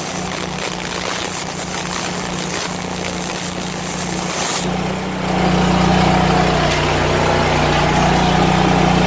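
Aluminum MIG welding arc from a spool gun, a steady crackling hiss that stops about four and a half seconds in. The Lincoln Ranger 10000 engine-drive welder runs steadily underneath throughout and is louder once the arc stops.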